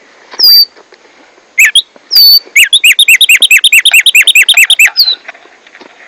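Black-striped sparrow (tumba yegua, tico tico) singing loudly: a few separate sharp whistled notes, then a fast, even run of about eight notes a second that lasts two seconds and more and breaks off abruptly.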